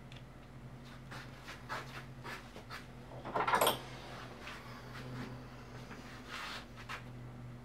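Hands handling a Hepco & Becker motorcycle hand guard on the handlebar: a few small clicks and knocks, with one louder scrape about three and a half seconds in, over a steady low hum.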